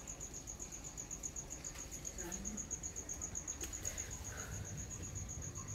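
A cricket chirping: a steady, high-pitched trill of rapid, evenly spaced pulses, over faint low handling noise.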